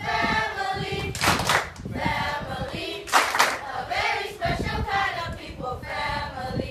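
A children's group singing together with clapping. Short, loud, noisy bursts cut across the singing about a second in and again about three seconds in.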